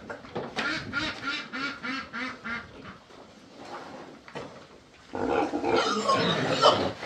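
Pigs grunting in a quick series, about three grunts a second, then a louder, rougher stretch of grunting about five seconds in.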